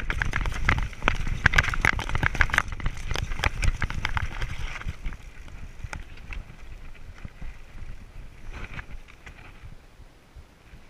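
Mountain bike clattering and rattling over a rocky trail, with dense clicks and knocks and wind rumble on the microphone. After about five seconds it eases off and grows quieter as the bike slows.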